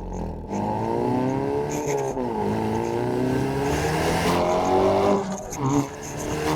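Hyundai Veloster N's turbocharged 2.0-litre four-cylinder on a full-throttle pull, with a catless downpipe and the valved exhaust in normal mode. The engine note rises, drops at an upshift about two seconds in, climbs again, and eases off about five and a half seconds in.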